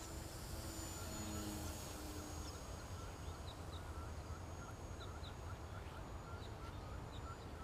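RC model plane's motor droning steadily as it flies by, dying away about two and a half seconds in. Birds chirp repeatedly over a low background rumble.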